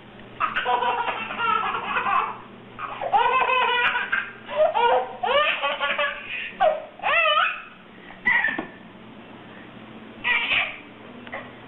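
A baby laughing in repeated bouts of belly laughter, about seven bursts with short pauses between.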